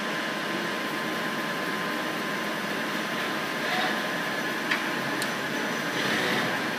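CNC automatic lathe running, a steady mechanical hum with faint steady whines and two light clicks near the middle. The axis drives make little noise, which is taken as a sign of a machine in good order.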